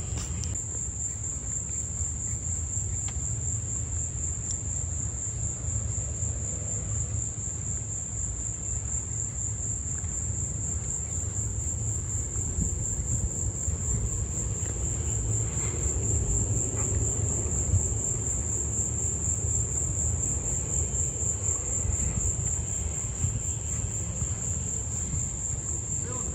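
A steady, high-pitched, unbroken drone of insects singing in chorus, over a continuous low rumble.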